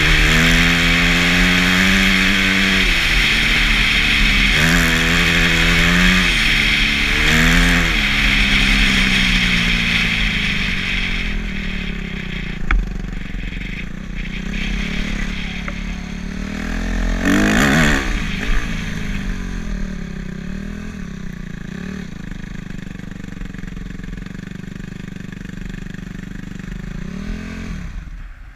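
Dirt bike engine revving up and down repeatedly over rough ground with wind rushing over the microphone, then running more quietly at low revs with one short rev partway through. The engine cuts off near the end.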